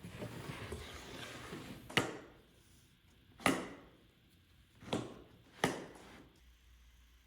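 About two seconds of scratchy scraping on wood, then four sharp knocks on a wooden workpiece, the first three about a second and a half apart and the last following closely after the third.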